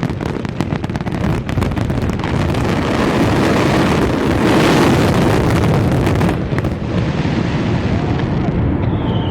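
Fireworks going off in a rapid string of bangs and crackles, thickening into a dense continuous barrage that is loudest about halfway through, then thinning out near the end.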